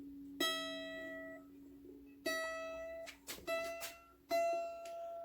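Mandolin string plucked four times at the same pitch while the instrument is being tuned, each note ringing and dying away over about a second. Small clicks fall between the plucks, and a lower string keeps ringing underneath.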